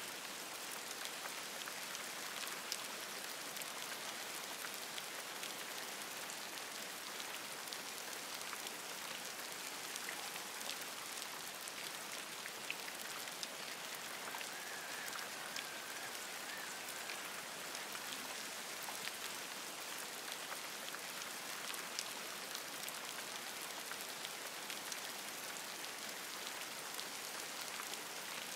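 Steady rain falling on forest leaves, an even hiss dotted with sharper individual drips. About halfway through, a faint wavering call sounds over the rain for a few seconds.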